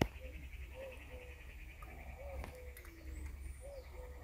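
An insect trills steadily in a fast-pulsing high note that stops near the end, while a bird repeats a short low two-part call, a rising-falling note then a level one, about every second and a half. A sharp click sounds right at the start.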